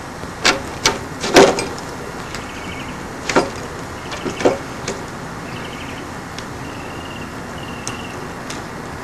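Burned automotive carpet and its wiring loom handled and pulled up off a wooden board: a handful of sharp knocks and crackles in the first five seconds, the loudest about a second and a half in, as the melted carpet comes away from the loom.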